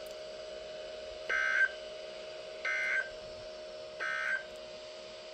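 Emergency Alert System SAME end-of-message data: three short, identical bursts of warbling digital tones about 1.3 seconds apart, marking the end of the flood statement. A steady low hum runs underneath.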